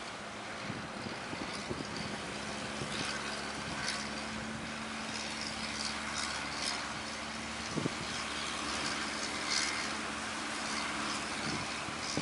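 Fishing boat engine running steadily under way, with wind noise and short splashing bursts of waves against the boat.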